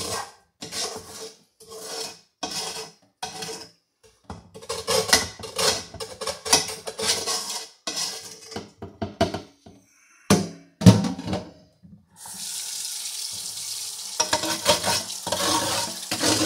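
Water and leftover sugar syrup splashing from a metal pot into a glass fermenting jar in a run of short spurts as the pot is tipped and shaken, with a heavier knock near the middle. A kitchen faucet then runs steadily for the last few seconds.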